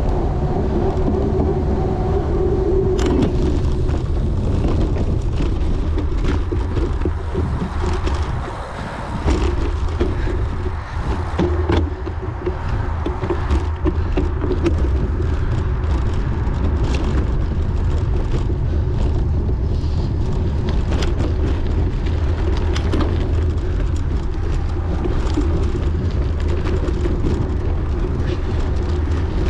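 Wind buffeting the microphone of a camera riding on a racing bicycle, a steady low rumble with frequent rattles and knocks from the bike over rough ground. The rumble eases briefly about eight seconds in.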